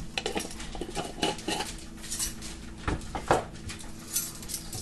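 Light kitchen clatter: scattered small clinks and knocks of metal measuring spoons and containers being handled and set down, with a couple of heavier knocks about three seconds in.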